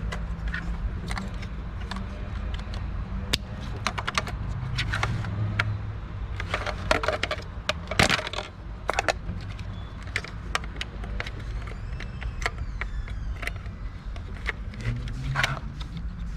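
Scattered clicks and light metallic clinks of hand tools and small parts being handled, the loudest about 8 seconds in, over a low steady rumble.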